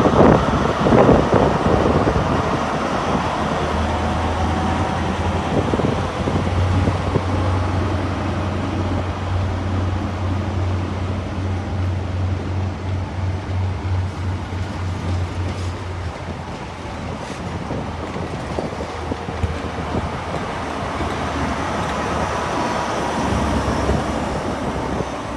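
Class 43 HST power car diesel engines running at the platform: a steady low hum with an even throb that eases off about two-thirds of the way through and builds again near the end, over general station noise.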